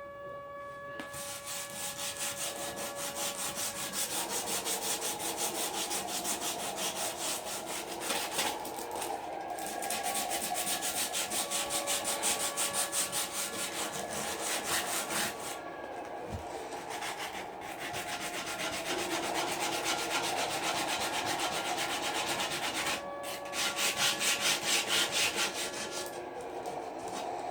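Sandpaper rubbed by hand over a metal bicycle frame in fast back-and-forth strokes, in four long bouts with brief pauses between them.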